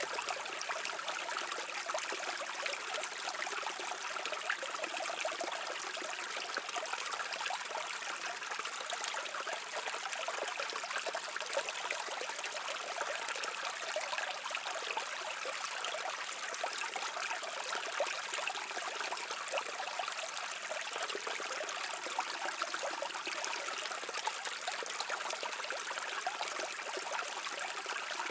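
A small stream running over rocks: a steady, even babble and trickle of water.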